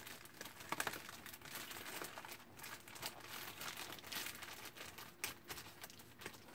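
Paper and plastic packaging being handled: irregular crinkling and rustling throughout, with a few sharper crackles.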